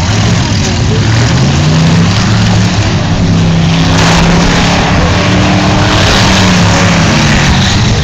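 Eight-cylinder demolition derby car engines revving hard and steadily under load as the cars push against each other, the engine note climbing a little over a second in and then holding.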